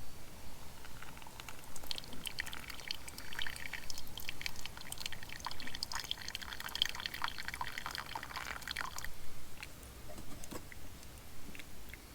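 Liquid being poured, with small splashes and drips, lasting from about two seconds in to about nine seconds in.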